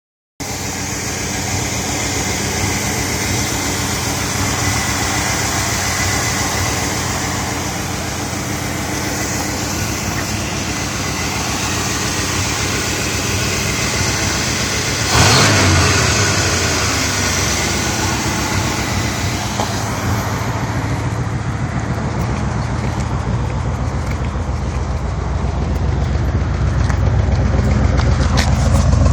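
1986 Chevy Caprice's carbureted engine running at a rough idle, with a sudden burst of throttle about 15 seconds in and a deeper, louder running near the end. The rough idle and bogging persist despite a new carburetor, distributor cap and rotor, coil, plugs and wires, EGR and PCV valves and fuel pump.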